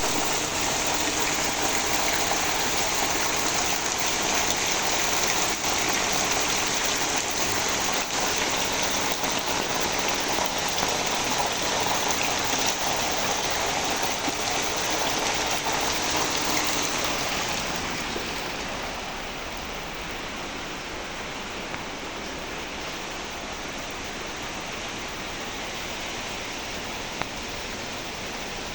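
Steady rain falling, an even hiss. About two-thirds of the way in it becomes quieter and duller.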